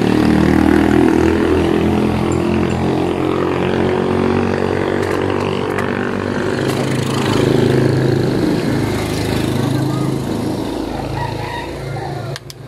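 A small engine running steadily, its pitch shifting a little, then dropping away suddenly near the end with a couple of sharp clicks.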